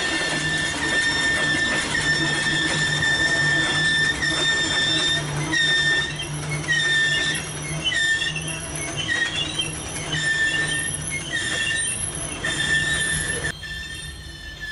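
Norfolk Southern freight train's wheels squealing as the cars roll past, over a low steady rumble. At first the squeal is one held high note; from about halfway it breaks into short squeals, one after another, and near the end it drops away.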